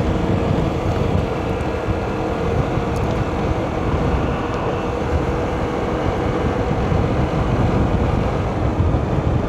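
Steady running noise of a moving vehicle on a concrete road: engine and road rumble, with a faint steady hum that fades out about six seconds in.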